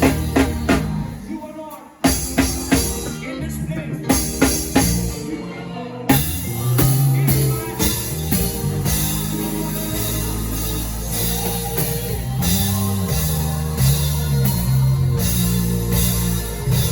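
A live worship band with drums, bass, keyboards and guitars playing. The bass drops out about 2 seconds in, leaving a run of sharp drum hits, and the full band comes back in about 6 seconds in.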